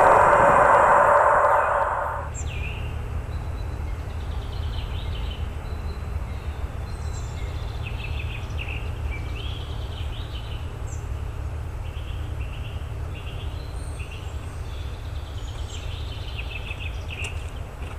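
The tail of a train's noise fades out in the first two seconds, leaving birds chirping over a steady low rumble. Near the end, footsteps crunch on the track ballast as someone walks up.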